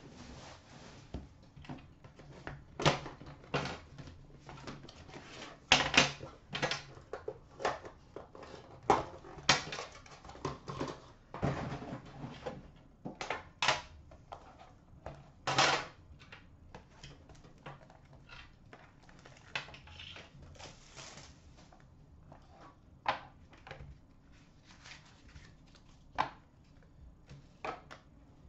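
Hands handling and opening a boxed hockey card set: irregular clicks and knocks of cardboard and packaging, with a few longer rustling stretches. Busy for the first half, then sparser.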